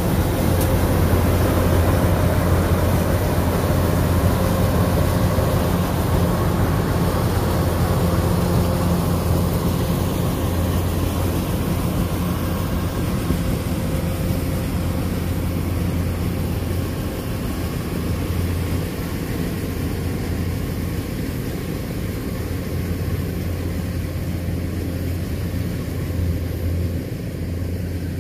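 Kubota DC-93 combine harvester's diesel engine running steadily under load, growing slightly fainter and duller after about ten seconds.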